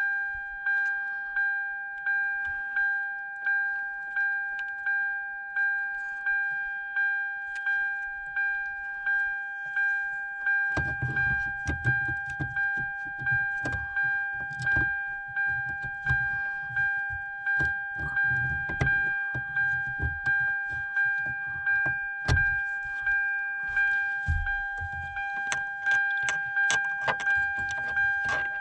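2007 Hyundai Sonata's dashboard warning chime dinging over and over, about one and a half dings a second. From about eleven seconds in, it is joined by irregular knocks and rattles of keys and handling at the steering column.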